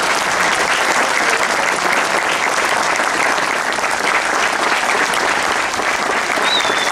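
A crowd applauding steadily. A thin high tone wavers briefly near the end.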